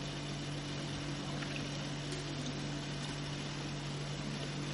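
Steady low mechanical hum with a constant low tone, unchanging throughout.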